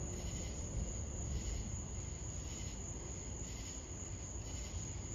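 Night insects trilling: a steady high buzz with pulses about twice a second, over a steady low rumble of outdoor noise.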